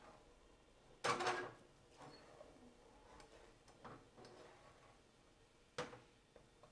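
Plastic spatula scraping and knocking against a non-stick frying pan as runny egg mixture is stirred, the pan shifting on the gas hob's grate. A loud clatter about a second in, a few lighter scrapes, and a sharp knock near the end.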